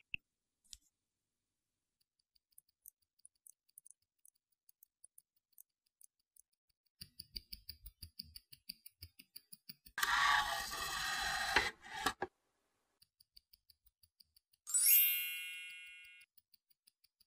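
Automatic Audemars Piguet watch ticking close to the microphone: a few faint ticks, then a quick, even run of beats. A loud rushing whoosh lasts about two seconds past the middle, and near the end a bright chime rings out and fades.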